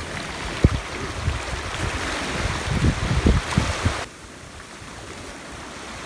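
Rough sea surf washing in at the shore, with low thumps of wind buffeting the microphone; about four seconds in the sound drops abruptly to a quieter wash of water.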